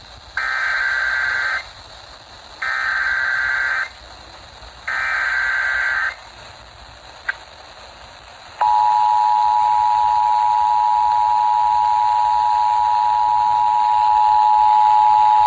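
Emergency Alert System header for a flash flood warning on the radio: three short bursts of warbling data tones (the SAME header), then after a pause the steady two-tone EAS attention signal starts and holds.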